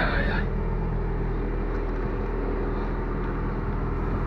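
Diesel engine of a DAF truck running steadily while driving, an even drone.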